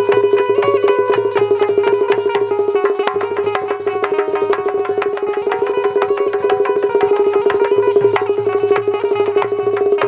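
Instrumental interlude of Bundeli rai folk music: a fast, steady hand-drum rhythm over a sustained melodic instrument line, with no singing.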